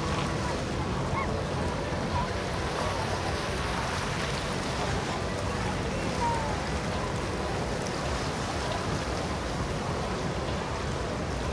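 Steady open-water ambience: water washing, with the low steady hum of boat engines running in the distance.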